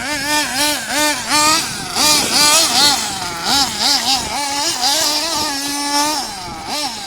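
GS Storm 1/8-scale buggy's 3.0 nitro engine revving in quick throttle blips, its pitch rising and falling about twice a second, with a short steady hold about six seconds in.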